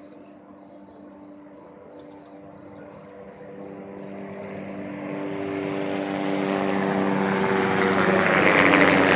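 Helicopter approaching, its engine and rotor noise growing steadily louder over several seconds. Crickets chirp in a steady pulsing rhythm underneath, fading under the helicopter.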